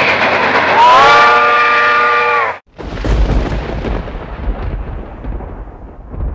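Subway train horn sounding for about two and a half seconds over the train's running noise, its pitch rising at the start and sagging slightly before it cuts off. Then a deep thunder rumble with rain hiss.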